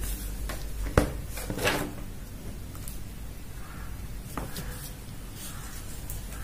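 An eyeshadow palette being lowered and set down, with a sharp knock about a second in. A few softer clicks and faint rustling of handling follow.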